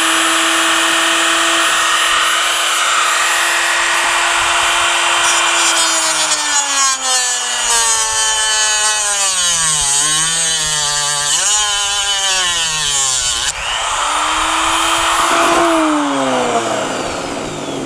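Handheld electric power tool running at a steady whine, then dropping and wavering in pitch under load as it cuts into an electronic circuit board. Near the end it speeds back up and then spins down.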